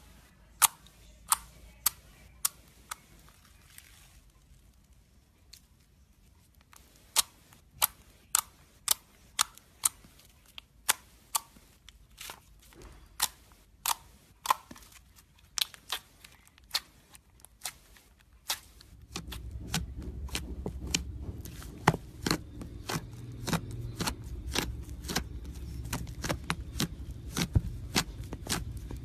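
Slime being poked and squeezed by hand, giving sharp, irregular clicking pops, roughly one to three a second, as trapped air bursts. About two-thirds through, a steady low rumble comes in under the clicks.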